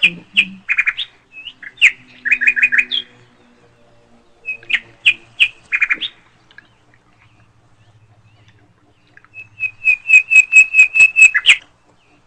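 A bird chirping in short groups of quick high chirps, separated by pauses, with a fast even run of about a dozen chirps near the end.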